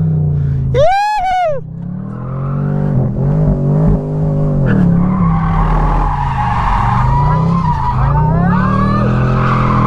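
Chevrolet Camaro convertible's engine revving up and down through a drift. Its tyres squeal steadily from about five seconds in as the car slides sideways. A short, high rising-and-falling squeal comes about a second in.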